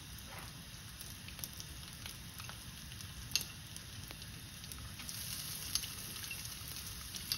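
Peppercorns, cumin, coriander seeds, dried red chillies and garlic sizzling softly in a little sesame oil in a kadai, with a few light pops. The sizzle grows slightly louder from about five seconds in, as grated coconut is tipped into the pan.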